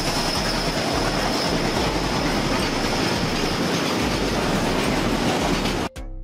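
Freight train of tank cars rolling past, wheels rumbling and clacking on the rails with a thin, steady high whine over it. It cuts off abruptly about six seconds in.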